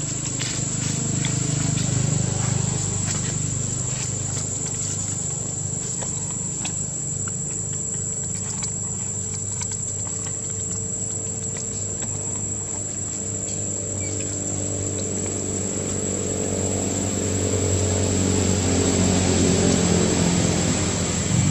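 Steady high-pitched insect drone over a low motor-vehicle engine hum, which grows louder over the last few seconds as the vehicle draws nearer.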